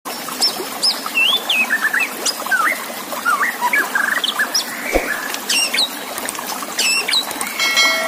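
White-rumped shama (murai batu) song: a fast, varied run of whistled phrases with rising and falling notes, over the steady hiss of trickling water. A sharp click about five seconds in, and a held, even-pitched note comes in near the end.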